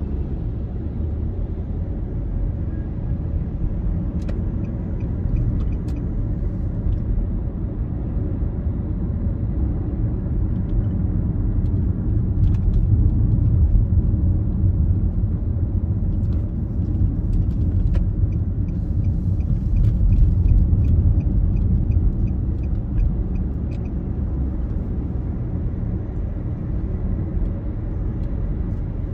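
Road noise inside a moving car: a steady low rumble of the engine and tyres, swelling a little about halfway through, with faint runs of regular ticking in places.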